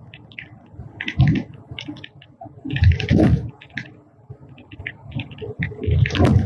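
Clattering and rumbling inside a moving vehicle, most likely a rail car: irregular loud bursts of rattling over a low rumble, about a second, three and six seconds in, with lighter clatter between.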